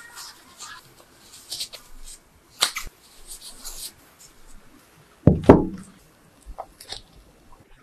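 Plastic food-prep gloves and soft dough being handled and pleated: light crinkling and rustling with a sharp click near the three-second mark. A briefer, louder, deeper sound comes a little after five seconds.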